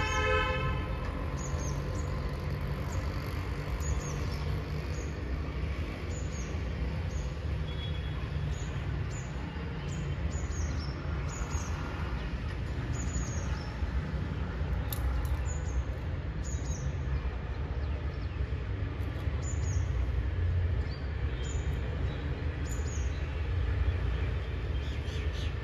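Small birds chirping again and again, short high falling chirps, over a steady low rumble.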